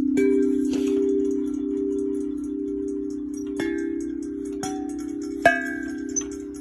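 Hollow playground chime tubes struck lightly several times, each strike ringing on in long, overlapping bell-like tones; the sharpest strike comes about five and a half seconds in.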